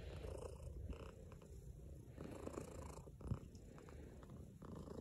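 Persian cat purring steadily while being stroked, a low continuous rumble. A brief knock sounds about two-thirds of the way through.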